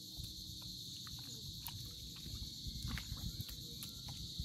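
Footsteps squelching through wet tidal mud, irregular soft thumps with scattered small clicks, over a steady high-pitched drone.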